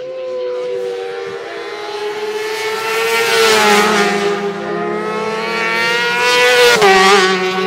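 Racing motorcycle at full race speed approaching and passing close by: the engine note rises in pitch and loudness as it nears, then drops sharply as it goes past, about seven seconds in.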